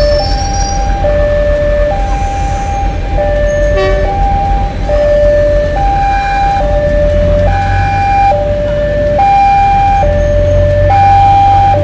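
Railway level-crossing warning alarm sounding two alternating tones, high and low, each held about a second, as a passenger train rumbles past over the crossing.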